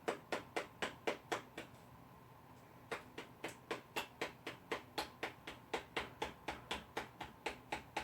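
A plastic squeeze bottle filled with hand sanitizer gel is knocked down repeatedly on a hard surface, about four sharp knocks a second, to settle the gel. The knocking pauses briefly near the two-second mark, then resumes.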